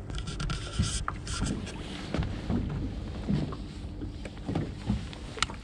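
Small fishing boat at sea: a steady low hum with water lapping and knocking against the hull, and wind on the microphone. A hissing rush comes in the first second, and a sharp click near the end.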